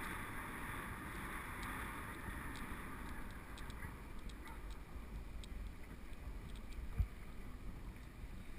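Wind rush on a GoPro's microphone and the tyre rumble of a mountain bike rolling on a paved lane. There are scattered light clicks and a single thump about seven seconds in.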